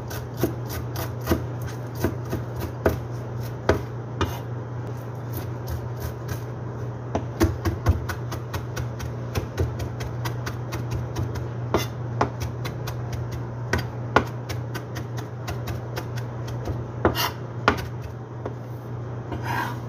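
Large kitchen knife chopping fresh herbs on a plastic cutting board: quick, irregular knocks of the blade on the board, in runs of several strokes, over a steady low hum.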